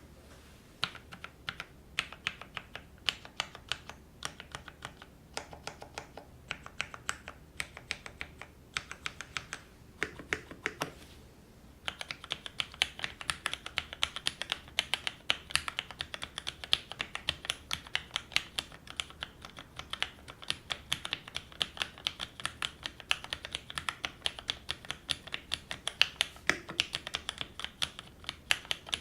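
Custom tenkeyless mechanical keyboard with Greetech Black linear switches (58 g) and GMK ABS keycaps being typed on. Short runs of separate keystrokes for about the first twelve seconds give way to fast, continuous typing.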